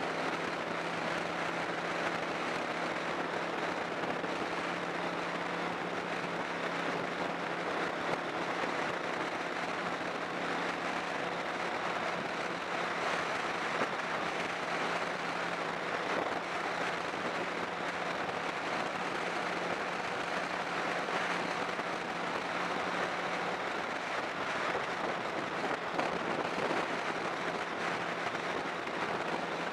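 Steady rush of wind and road noise on the microphone of a moving vehicle, with an engine drone holding a constant low note underneath.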